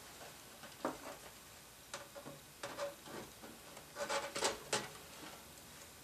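Handling noise as an ASUS Crosshair IV Formula motherboard is lifted out of a PC case: faint scattered clicks, taps and rubbing of the board against the case, with a louder run of knocks about four seconds in.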